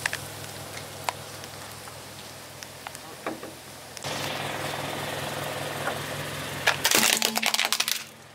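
A plastic shark-jaw toy being crushed under a car tyre: a rapid run of loud cracks and snaps for about a second near the end as the plastic breaks, over a low steady hum.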